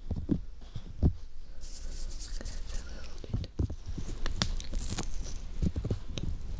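Bare fingers rubbing and scratching the fluffy fur cover of a homemade binaural microphone, heard very close: irregular rustling with soft low thumps as the hands press on it.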